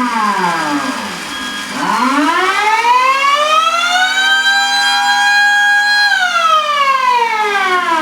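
Miniature Thunderbolt siren sounding an attack signal on its chopper. Its pitch falls to a low point, rises over about two and a half seconds, holds steady for under two seconds, then winds back down.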